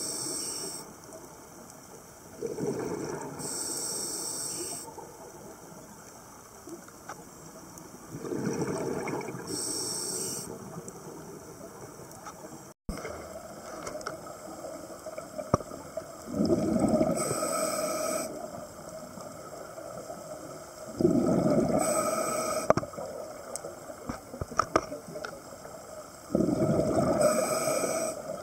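A scuba diver breathing through a regulator underwater: six breaths a few seconds apart, each a hissing rush of air and bubbles, with a low steady underwater hush between them.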